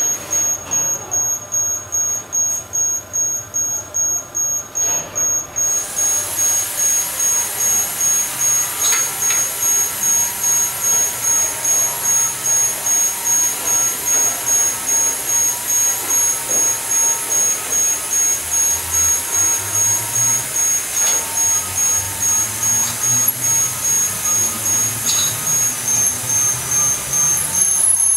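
Electric drive motors of a puzzle parking lift running as its platforms shift sideways and lower on chains and steel ropes, with a steady high-pitched whine that gets louder about six seconds in and an even pulsing about twice a second.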